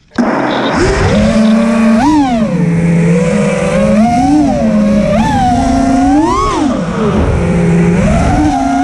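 FPV freestyle quadcopter's brushless motors and propellers whining. The pitch swings up and down repeatedly as the throttle is punched and eased, with sharp rises about two, four, five and six and a half seconds in.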